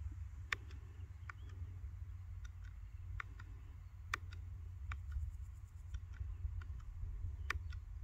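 Handlebar switchgear buttons on a Ducati Diavel 1260S clicking as they are pressed to step through the dashboard menu, a sharp click about once a second at uneven spacing, over a low steady rumble.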